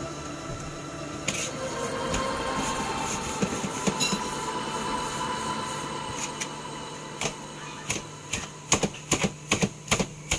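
Soft dough handling on a stainless steel worktop, then from about seven seconds in a quick run of sharp taps, two to three a second: a plastic dough scraper chopping a log of dough and striking the metal table.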